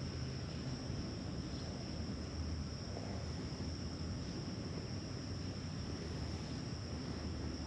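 Steady high-pitched insect drone, from crickets or cicadas, holding one pitch throughout, over a low rumble of wind on the microphone.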